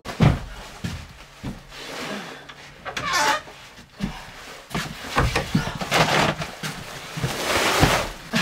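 Footsteps and scattered knocks as a heavy feed sack is carried in, then a longer rustle of the sack toward the end as it is lowered and set down.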